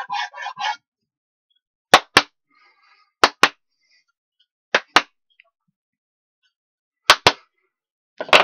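Sanding block rubbing back and forth on a plywood edge, stopping under a second in. Then five pairs of sharp slaps or knocks, one pair every second or two.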